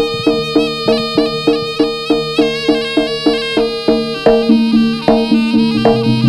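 Live East Javanese jaranan music: a reedy wind instrument, the slompret shawm, holding and shifting notes over evenly struck gamelan percussion, about three strikes a second.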